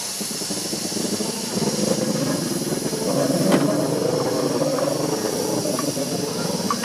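Steam locomotive hissing steam steadily, with a low rumble under it and a single sharp click about three and a half seconds in.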